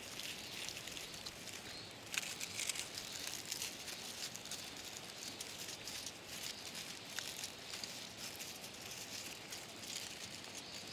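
Dry sunflower seed heads being rubbed and picked apart by hand, a steady hissing rustle with irregular dry crackles as the seeds come loose.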